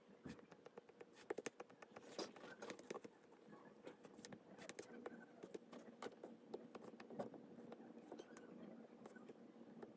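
Faint, irregular taps and light scratches of a disc-tip stylus on a tablet's glass screen.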